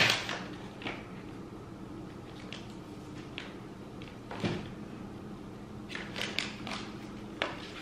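Paper and card being handled: short crinkles and soft taps as a greeting card is pulled from its envelope, with one sharp sound at the start, one about halfway and a few more near the end, over a faint steady low hum.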